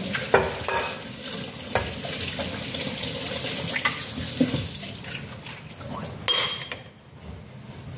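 Hands mixing minced dumpling filling in a glass bowl and dropping in an egg, with a few light knocks, over a steady rush like running tap water. A sharp ceramic clink comes about six seconds in as a dish on the counter is handled.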